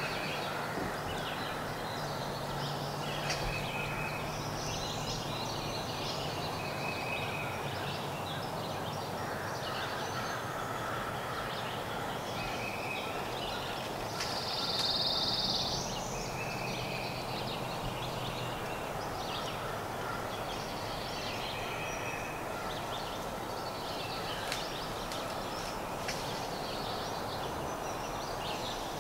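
Woodland birds singing: short chirped notes repeated every second or two, with one louder, higher buzzy trill about halfway through, over steady forest background noise.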